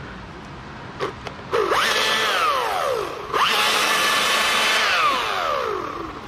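Chainsaw revved twice: each time the engine note climbs quickly, holds high for a second or two, then sinks back down. A few light clicks come just before the first rev.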